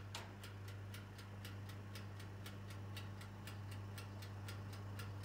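Steady, even ticking, about four ticks a second, over a low steady hum.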